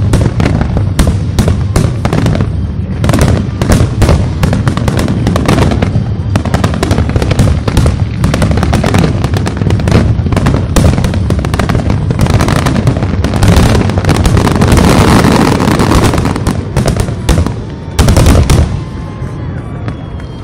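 Aerial fireworks shells bursting in a dense, rapid barrage, many bangs a second. The bangs come thickest around fourteen to sixteen seconds in, and a loud cluster follows at about eighteen seconds, after which the barrage thins out.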